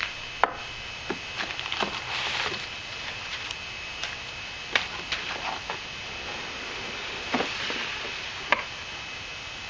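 Handling noises of unboxing a rifle: scattered knocks and clicks with bouts of rustling, the sharpest knock about half a second in and others near five and eight and a half seconds in.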